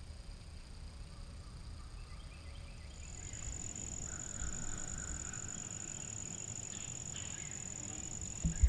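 Insects buzzing steadily, with a high, even note joining in about three seconds in. A single sharp thump comes near the end.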